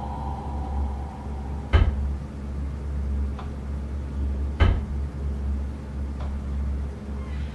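Two loud sharp bangs, about three seconds apart, with fainter knocks between them, over a steady low drone.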